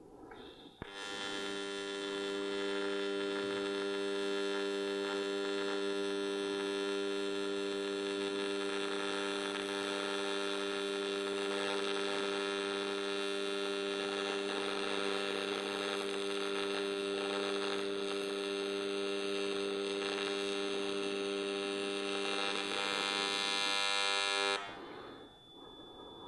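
AC TIG welding arc from a Lincoln Invertec V205-T buzzing steadily on cast aluminium. It strikes about a second in, grows slightly louder near the end, then cuts off suddenly when the arc is broken.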